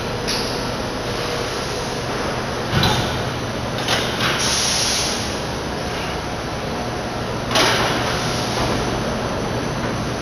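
An automatic rockwool sandwich panel production line runs around its suction-cup panel stacker with a steady machine hum. Sharp clanks come at about three, four and seven and a half seconds, and a short hiss comes about four and a half seconds in.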